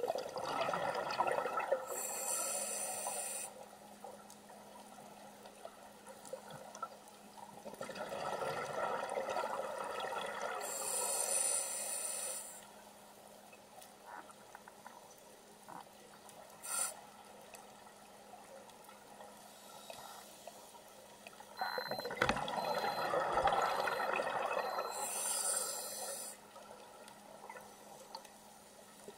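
A scuba diver breathing through a regulator, heard underwater through the camera housing: three breath cycles, each a stretch of gurgling exhaled bubbles ending in a short high hiss from the regulator. There is a single sharp click about halfway through.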